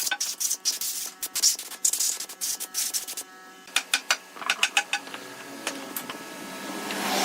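Quick rubbing and scraping strokes, many in the first three seconds and fewer after, with faint steady tones behind them from about three seconds in.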